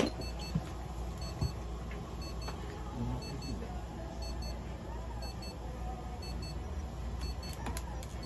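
Electronic beeping from clinic equipment: short, high-pitched double beeps repeating about once a second over a steady low hum. A few soft knocks come in the first second and a half.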